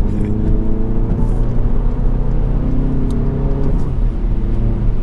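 Turbocharged four-cylinder engine of a Mk7 Volkswagen GTI with an aftermarket exhaust, heard from inside the cabin under gentle acceleration. The engine note climbs steadily, then drops a step a little under four seconds in.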